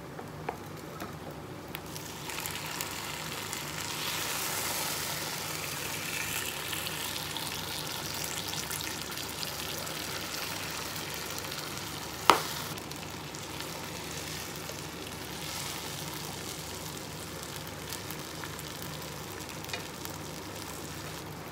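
Fried eggplant and potato slices sizzling in hot oil in a pan while a wooden spatula stirs them; the sizzle swells a few seconds in, as the eggplant goes in. One sharp knock about halfway through.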